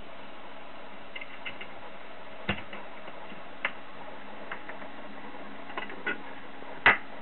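Scattered light clicks and taps, a handful spaced irregularly with the loudest near the end, over a steady faint hum.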